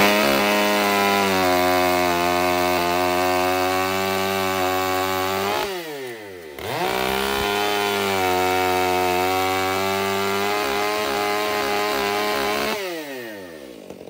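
A Stihl 500i two-stroke chainsaw at full throttle, cutting through a pine log with its chain not yet sharpened. The engine holds a steady pitch through the first cut and drops toward idle about six seconds in. It revs back up for a second steady cut, then falls away to idle near the end.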